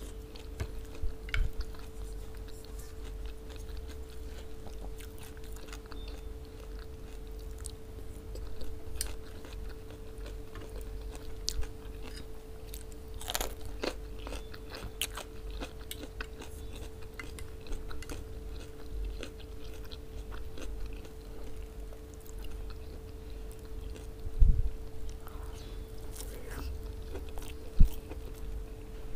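Close-miked eating sounds: wet chewing and crunchy bites of a raw green chili pepper along with lamb and okra stew with rice. Two sharp low thumps come near the end, over a steady faint hum.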